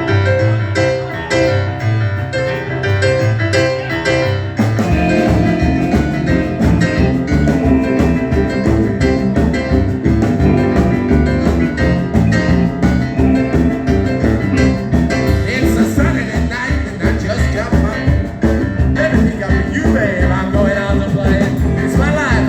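Live boogie-woogie rock and roll in C: the piano plays the intro alone, and the full band comes in with a steady driving beat about five seconds in.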